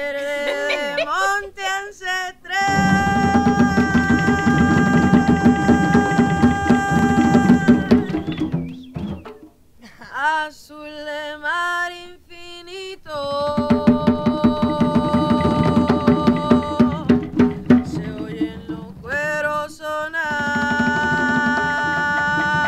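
A woman singing a Puerto Rican bomba song in long held phrases that scoop up into each note. Hand-played barriles de bomba (barrel drums) come in under the voice about three seconds in, drop out around eight seconds, return a little after thirteen, and drop out and come back once more near the end.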